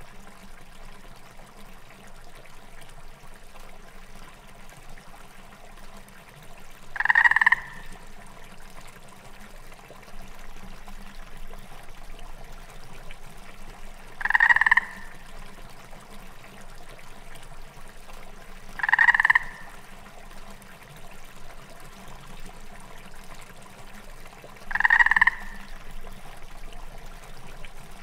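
A frog calling four times, each call a short croak under a second long, several seconds apart, over a steady background of trickling water.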